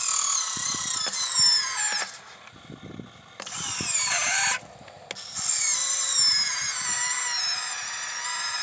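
Small electric drive motors and gearboxes of a 1550 RC excavator whining as it digs, with the pitch sliding as the motors work under load. It runs in three spells, with short pauses about two and five seconds in.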